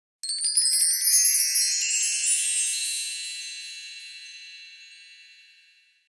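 A shimmering cascade of high, tinkling chime notes, like a wind chime, played as an intro sound effect. The notes climb in pitch for about two seconds, then ring on and fade slowly away to nothing.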